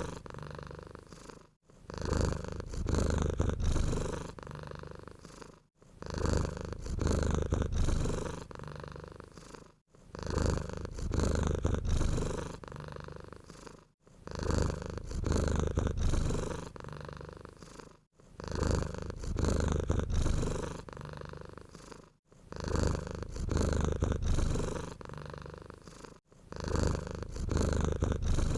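Domestic cat purring, a low rumble that swells and fades in even cycles of about four seconds, with a brief drop between cycles.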